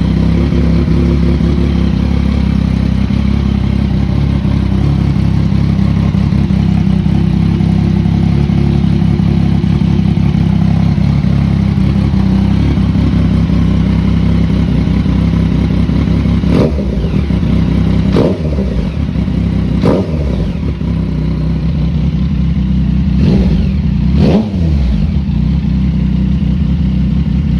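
Yamaha FZ-09 (MT-09) three-cylinder engine idling steadily through a Two Brothers slip-on exhaust, then given five quick throttle blips in the second half, each rev rising and falling back to idle.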